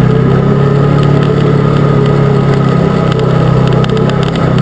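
Arctic Cat Wildcat UTV's V-twin engine running at a steady, loud pace.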